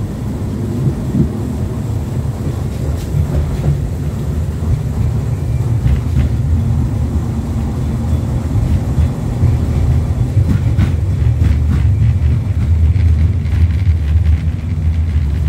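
LVS-86K articulated tram running between stops, heard on board: a steady low rumble of wheels on rails and running gear, louder in the second half, with a few light knocks.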